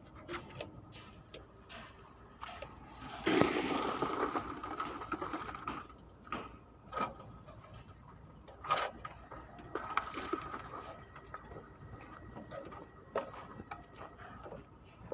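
Work noises: scattered clicks and knocks, with a louder spell of scraping noise about three seconds in, over a faint steady whine.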